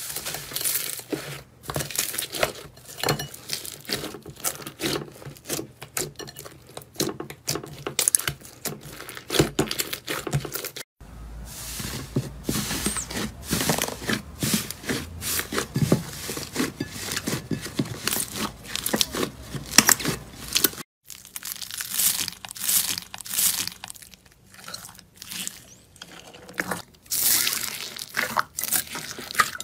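Hands pressing and kneading thick slime in a glass bowl: dense crackling and popping of trapped air. It cuts off abruptly twice, about a third and two-thirds of the way through, and resumes. In the last part the slime is mixed with white foam beads.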